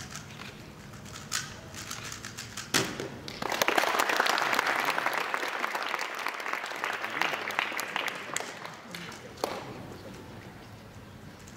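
Speedcube being turned fast with light clicks. Near three seconds in a sharp slap ends the solve and stops the timer. An audience then applauds for about five seconds before the clapping fades.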